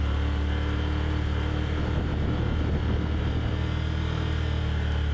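Side-by-side utility vehicle's engine running at a steady speed while driving, a constant low drone with rumbling and rattle.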